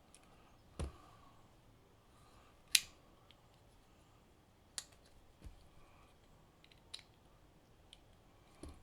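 Christensen Knifeworks Maverick S folding knife being opened and closed by hand: about six sharp clicks as the blade snaps open into lock-up and shuts, the loudest about three seconds in. The lock releases freely, its lock stick cleared by the cleaning and reassembly.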